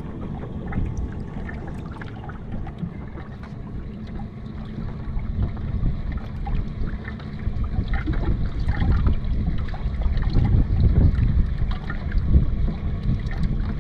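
Water lapping against a small fishing boat's hull, with wind rumbling on the microphone; it grows louder about halfway through.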